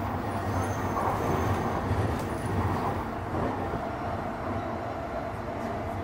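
Electric commuter train running on the line, heard from inside the car: a steady rumble of wheels on rail with faint high whines. It grows a little louder about a second in, then eases.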